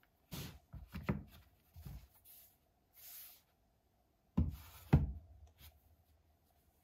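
A tablet being handled and fitted into a soft folio case: rubbing and light knocks, a brief scuff, then two louder thumps about four and a half and five seconds in as the cased tablet is set down.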